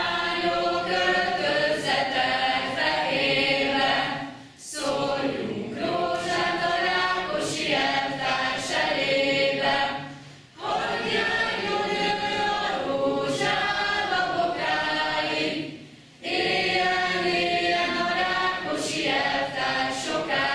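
A group of young men and women singing a song together without accompaniment, in phrases of about five seconds with brief breaks between them.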